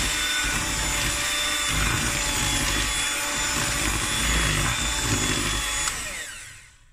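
Electric hand mixer running steadily with a motor whine, its beaters mixing flour into cake batter. About six seconds in it is switched off and the whine falls in pitch as it winds down.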